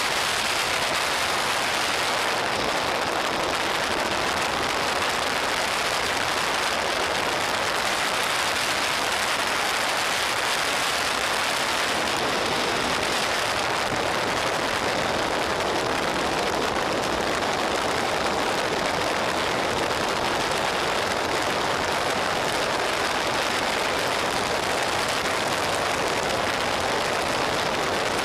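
Steady rushing wind noise over the microphone of a camera on a motorcycle moving at road speed, an even hiss with no clear engine note.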